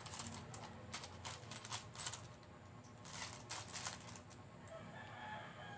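Metal coins clinking and rattling against each other as hands stir and shift them in a bowl: many quick small clicks, thinning out after about four seconds.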